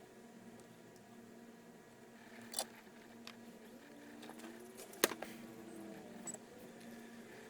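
Faint clicks and knocks, the sharpest about five seconds in, over a low steady hum.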